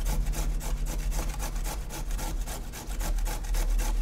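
Carrot grated by hand on a grater: rapid, even back-and-forth scraping strokes, several a second.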